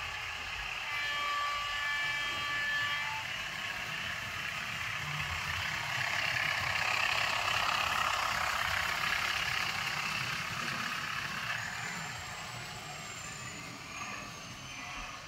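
A model diesel locomotive's DCC sound decoder playing a diesel engine sound through its small speaker as the model runs along its track. It grows loudest midway as the locomotive passes close, then eases off.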